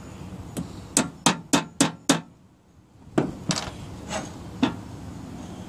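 Steel pliers tapping a 3/32 Allen wrench, used as a drift to seat the pin in a clutch master cylinder's push rod. A quick run of about six sharp metal taps, a short pause, then four more, spaced further apart.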